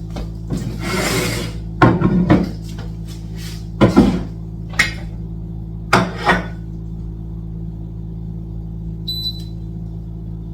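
Kitchen clatter: several separate knocks and scrapes of cooking utensils and pots over a steady low hum, then a short, high electronic beep from a kitchen appliance about nine seconds in.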